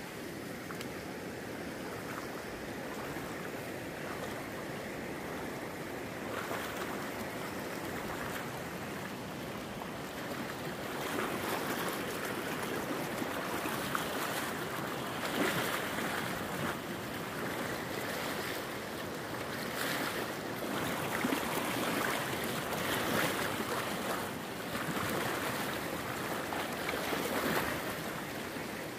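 Shallow mountain stream rushing over rocks, a steady rush of water that grows louder and more uneven from about eleven seconds in.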